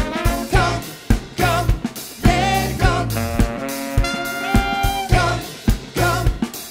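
Funk band playing live: electric guitars, bass and drum kit with a horn section of trumpet and saxophone, on a steady beat with long held notes about halfway through.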